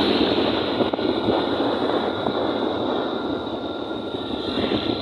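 Steady rush of wind and road noise with the engine running, recorded from on board a moving motorcycle.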